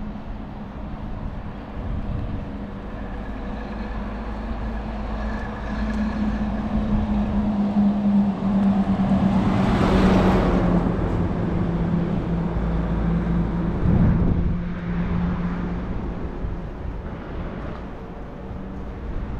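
A motor vehicle passing on the road alongside: its engine hum and tyre noise build up, peak about halfway through and fade away, the hum dropping slightly in pitch as it goes by. A shorter swell of traffic noise follows about three-quarters of the way through.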